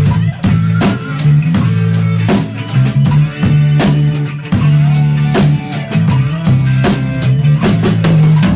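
Drum kit played to a rock backing track with guitar and bass: a steady beat of sharp drum and cymbal strikes, about three or four a second, over held low guitar and bass notes.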